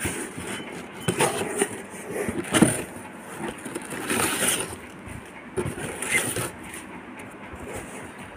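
Honeycomb kraft-paper packing wrap being pulled aside and crumpled by hand inside a cardboard box: irregular rustling and crinkling in several louder bursts.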